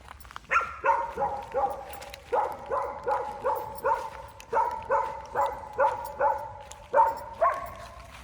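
An animal calling in a fast, even series of short pitched calls, about two or three a second, starting about half a second in and stopping near the end.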